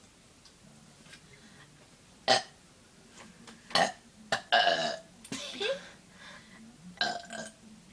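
Girls burping after drinking soda: a run of short, small burps, one after another, starting about two seconds in, with one slightly longer burp near the middle.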